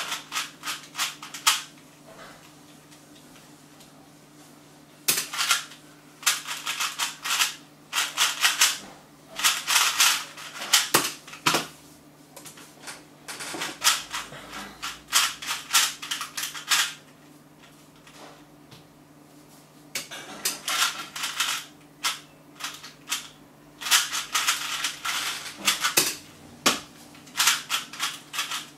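A 2x2 Rubik's cube being turned fast in the hands: rapid plastic clicking and clacking of the layers. The clicking comes in runs of a few seconds, with quieter pauses between solves. A steady low hum runs underneath.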